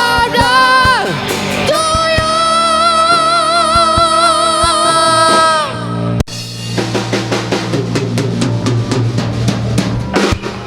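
Band music: a singer holds one long note with vibrato over the band for about four seconds, then the voice stops about six seconds in and the drums and cymbals carry on with the band.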